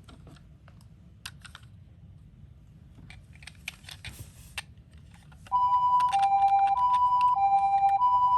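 Small plastic clicks and taps of toy miniature cars being handled. About five and a half seconds in, a toy ambulance's electronic siren starts: a two-tone hi-lo siren, switching between a higher and a lower note about every two-thirds of a second.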